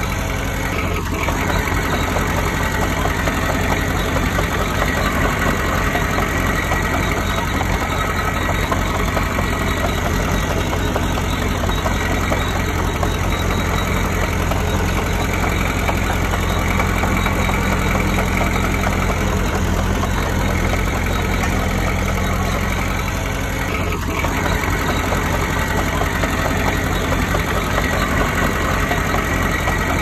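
Diesel engine of a Komatsu D20P bulldozer running steadily.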